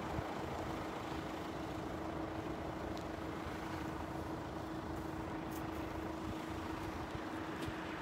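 Steady road traffic noise with a constant low hum and no distinct passing events.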